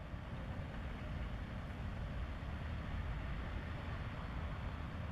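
Steady low rumble with an even hiss and no distinct events: outdoor harbour background noise.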